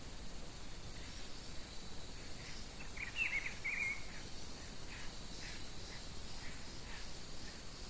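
A songbird sings a short warbled phrase about three seconds in, over steady background hiss with a faint continuous high insect drone and scattered quieter chirps.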